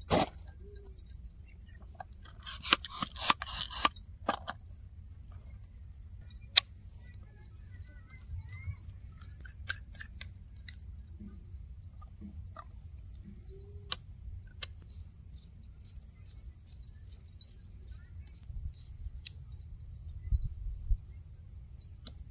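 Clicks and knocks as oar shaft sections from an Intex Explorer 200 boat set are handled and fitted together, a dense run of them a few seconds in and single clicks later, with a few low thumps near the end. A steady high hum and the odd bird call sit under it.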